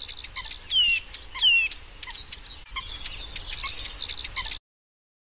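Birds chirping and singing in a busy chorus, with two clear down-slurred whistles about a second in; the birdsong cuts off suddenly a little past four and a half seconds.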